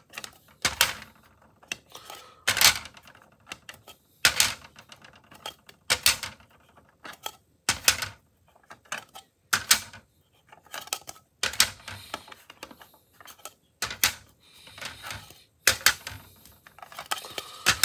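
Hard plastic PSA graded-card slabs clacking against one another as they are handled and set down one after another: a sharp clack about every two seconds, with lighter taps in between.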